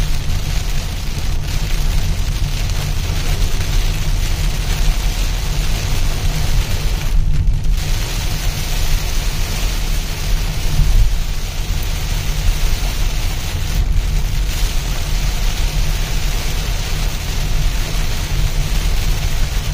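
Heavy rain falling steadily over a continuous deep low rumble; the rain hiss briefly thins out about seven seconds in.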